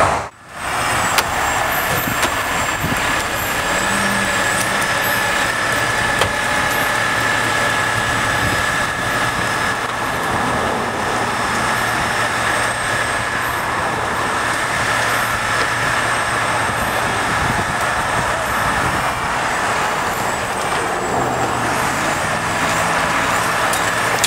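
Heavy-duty wrecker's diesel engine running steadily under load, with a high, steady whine over it, as its cables pull an overturned dump truck back onto its wheels. The engine pitch rises a few seconds before the end.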